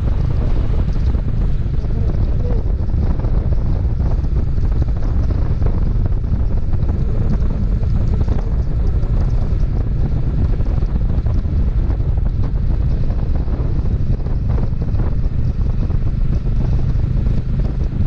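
Wind rushing and buffeting the microphone on a motorcycle riding at road speed: a loud, steady, low rush.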